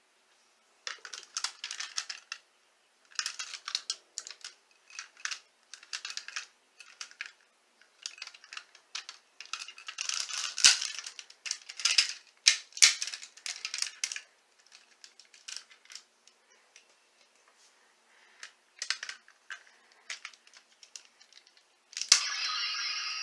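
Hard plastic parts of a transforming toy car clicking, rattling and snapping as they are twisted and folded by hand, in irregular bursts with short pauses. Near the end comes a longer, squeaky, scraping sound.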